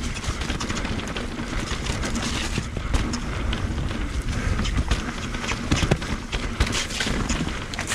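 Merida eOne-Sixty electric mountain bike riding down dirt singletrack: tyre noise over the trail with frequent rattles and knocks as the bike hits bumps, and wind rumbling on the microphone.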